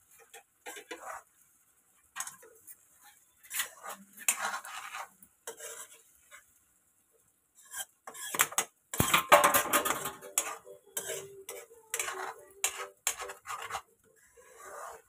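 A metal spoon scraping and clattering around a metal kadai as a thick brain-and-egg scramble (bheja khagina) is stirred. The strokes come in irregular bursts with short pauses, busiest and loudest in the second half.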